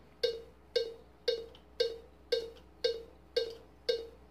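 Cubase metronome sounding a custom click sample at a raised level: short, sharp, pitched ticks at an even tempo of about two a second, all at the same pitch, eight in a row.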